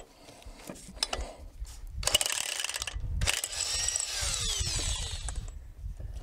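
Electric impact wrench hammering on a seized lug nut of a 1957 Ford truck wheel, in two runs of about one and two seconds, the motor's pitch falling as it winds down at the end. The rusted-in studs will not break loose.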